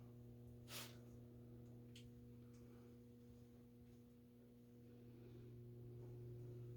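Faint steady low electrical hum, with a single sharp click about a second in and a fainter tick a second later.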